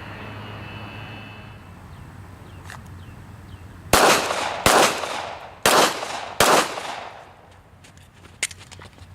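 Four 9mm pistol shots from a Glock 34, fired a little under a second apart starting about four seconds in, each with a short echo.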